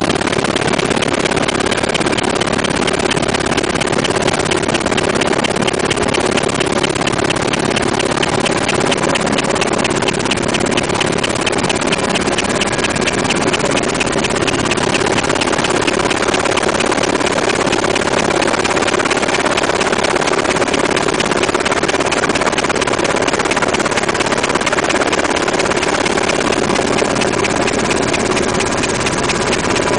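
Inside the cockpit of a UH-60 Black Hawk helicopter in flight: the loud, steady mixed noise of its twin turboshaft engines, transmission and main rotor.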